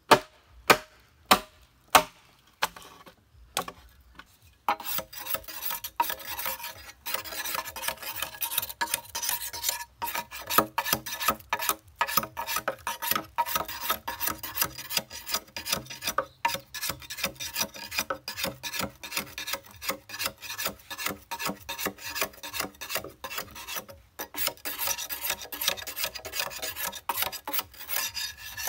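Machete on a green bamboo culm: three sharp chops in the first two seconds. From about five seconds in come rapid, continuous scraping strokes as the blade shaves the outer skin off the pole.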